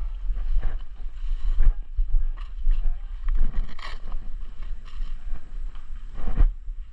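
Low wind and handling rumble on a body-worn action camera's microphone, with irregular knocks and thuds from the player moving with his gear.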